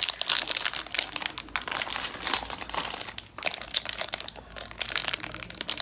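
Plastic packaging crinkling in quick, irregular crackles as hands work at pulling it open.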